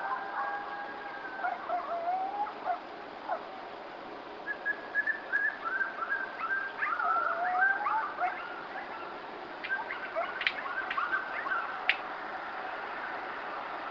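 A group of coyotes howling and yipping together: many overlapping, wavering calls that glide up and down, with a few sharp short yips near the end, over a steady hiss.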